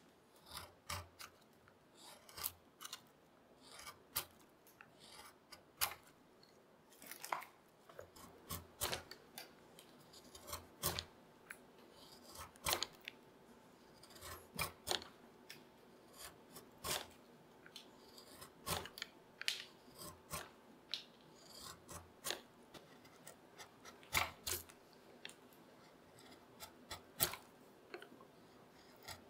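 A hand-pushed curved carving gouge cutting beech, each stroke a short crisp slicing sound as a shaving lifts, one or two strokes a second at an uneven pace.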